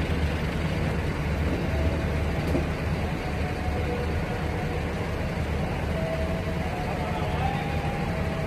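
Diesel-hauled passenger train pulling out of the station and rolling away, a steady low rumble of the locomotive and carriages.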